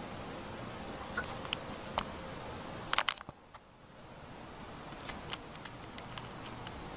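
Steady hiss of a handheld camera's microphone with scattered sharp clicks and taps of handling. A loud cluster of clicks comes about three seconds in, after which the hiss drops out and slowly builds back up.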